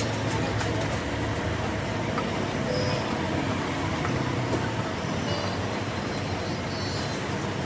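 Air cooler's electric motor running steadily with a loud noise, the sign of a failing bearing.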